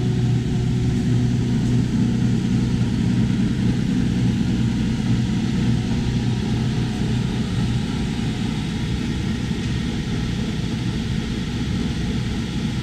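Dust collector's main motor and blower running steadily, a loud, even rush of air with a low hum that weakens about two-thirds of the way through, as it draws dust from the panel saw.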